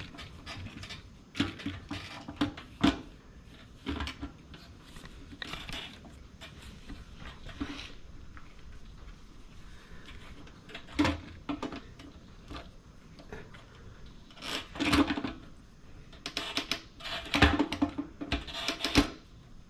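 Irregular clicks, knocks and light rattles of hard parts being handled and pushed together as a motorcycle fuel pump assembly is worked into place in the fuel tank, with a few quicker clusters of knocks near the end.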